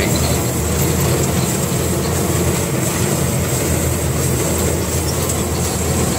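An M35A2 6x6 army truck's engine and drivetrain running steadily under way, a loud continuous drone heard from inside the open, weather-worn cab while rain falls on it.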